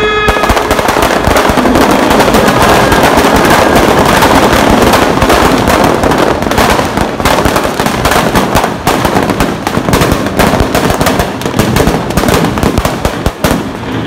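Firecrackers going off in a rapid, continuous crackle of bangs, dense at first and thinning into more separate cracks after about eight seconds.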